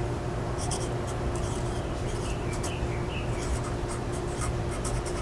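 A pen writing on a plant label: a run of short, scratchy strokes, over a steady low hum.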